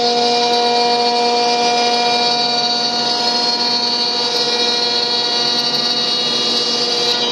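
CNC router spindle running at a steady speed: a constant multi-pitched whine over a hiss.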